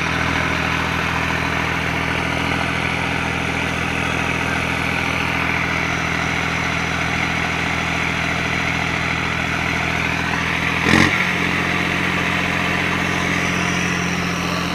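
Heavy vehicle's engine running steadily at an even speed, with one short sharp knock about eleven seconds in.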